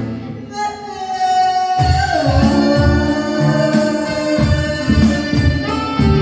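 Live band of electric bass, drums and keyboard backing a woman singing into a microphone. The band drops out at the start under a single held note, then bass and drums come back in about two seconds in.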